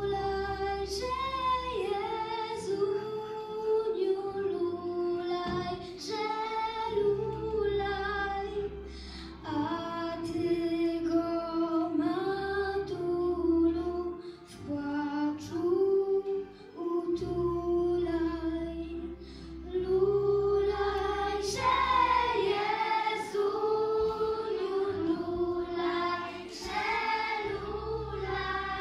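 A group of young voices singing a song together in one melody line, with instrumental accompaniment underneath.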